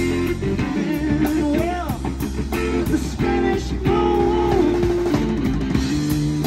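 Live rock trio playing an instrumental passage: electric guitar playing a lead line with notes that bend in pitch, over bass guitar and a drum kit.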